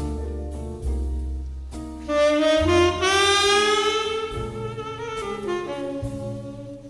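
Jazz saxophone playing an instrumental melody over double bass, with one note sliding upward about three seconds in.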